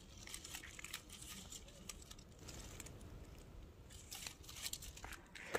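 Faint rustling and crackling of leaves as a hand handles a leafy plant, in short irregular crackles over a low steady rumble.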